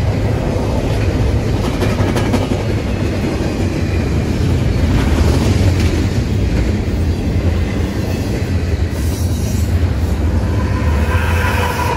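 CN double-stack intermodal container train rolling past: a steady rumble and clatter of steel wheels on the rails, with a faint wheel squeal coming in near the end.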